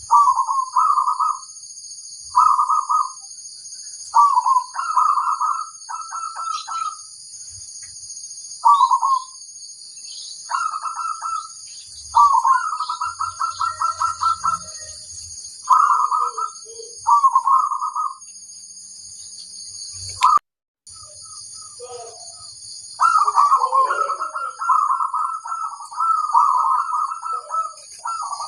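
Zebra dove (perkutut) cooing in a series of short rolling phrases with pauses between them, one phrase breaking into a fast stutter partway through and the calling growing denser near the end. A steady high-pitched hiss runs underneath.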